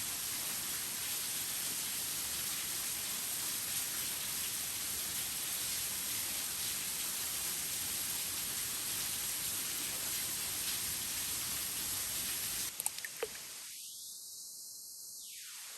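Steady, even hiss of falling water. A few sharp clicks come near the end, then the sound continues quieter.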